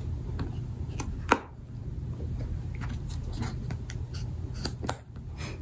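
Fingers handling and opening a hinged gift box: a few scattered light taps and clicks of the panels, the sharpest a little over a second in and two more near the end, over a steady low hum.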